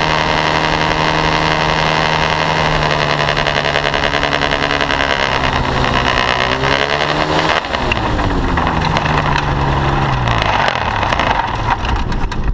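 Paramotor trike's engine and propeller running loud and steady. About seven or eight seconds in, the engine slows and its pitch falls away over two or three seconds.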